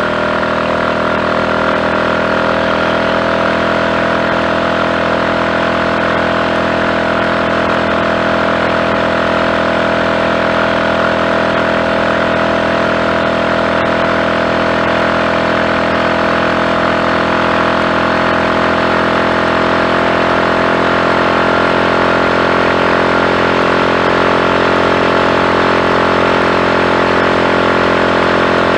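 Triumph Tiger Cub's single-cylinder four-stroke engine running steadily at an even pitch, with no stutters or misfires. It is running cleanly on a carburettor with a new slide, needle, needle jet and main jet fitted to cure a rich mixture.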